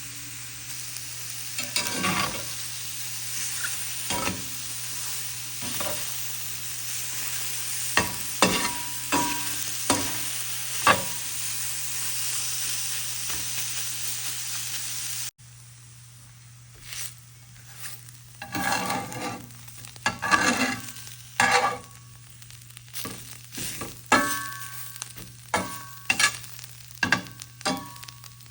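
Chicken of the woods mushroom pieces dry-sautéing in a pan: a steady sizzle, with a utensil clicking and scraping against the pan as they are stirred. About halfway through the sizzle drops away suddenly, leaving mostly irregular scrapes and knocks of stirring.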